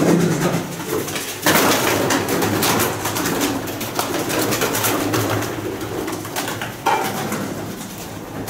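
Pigeons cooing in an enclosed space; about a second and a half in, a flock takes flight, wings clattering rapidly and continuing as the birds flap around.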